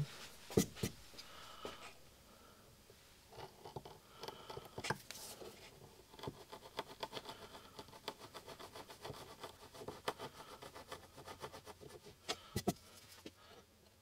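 A 3mm V-tool carving chisel pushed by hand through wood to cut grooves: faint scraping and a quick run of small ticks as it shaves, with a few sharper knocks about half a second in and near the end.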